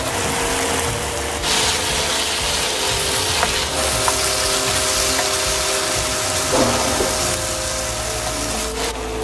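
Soy-and-sugar glaze sizzling steadily in a frying pan over high heat as pork back ribs are stirred and turned with a wooden utensil, with scraping and clicking against the pan. The sauce is in its final high-heat reduction, boiling down to a sticky glaze.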